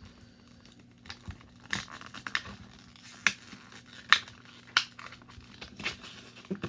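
A toy's cardboard box and plastic packaging being handled and pulled open: crinkling, with several sharp clicks and snaps.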